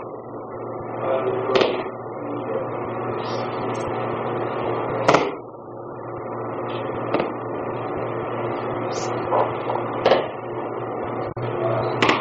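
Aikido throws ending in breakfalls on a padded mat: a few sharp slaps of a body and arm hitting the mat, the loudest about halfway through, over a steady hum and hiss.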